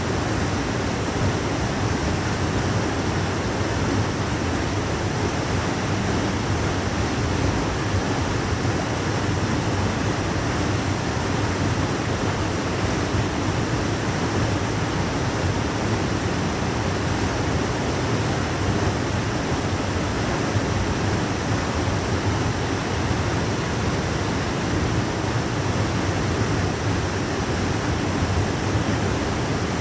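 Waterfall pouring: a steady, unbroken rush of falling water, strongest in its low rumble.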